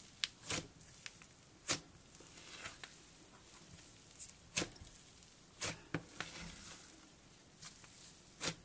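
Thick cloud slime made with expanding snow being kneaded and pressed by hand, giving scattered short crackles and squishy pops, about eight of them at irregular intervals.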